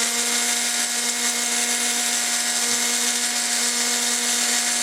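Small electric drill running at a steady high speed with a constant whine, opening up the axle holes of a 1:64 diecast car's chassis to fit new axles.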